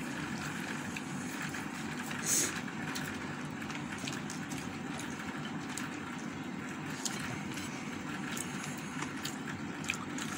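Steady background noise, with faint sounds of eating by hand: chewing and fingers picking through rice and chicken on a plate. A brief louder rustle comes about two seconds in.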